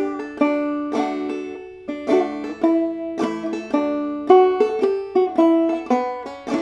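Open-back five-string banjo in double-D tuning (aDADE), played clawhammer style: a slow melody of struck single notes and brushed strums, about three strokes a second, each note ringing on.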